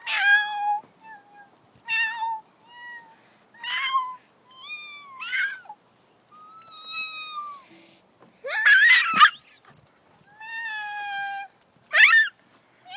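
A girl's voice making a series of short, high-pitched squealing cries that slide up and down in pitch, one after another with short gaps. A louder, harsher squeal comes about nine seconds in.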